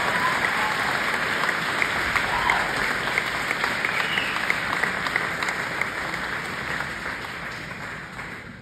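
Audience applauding, dense clapping that fades away over the last couple of seconds.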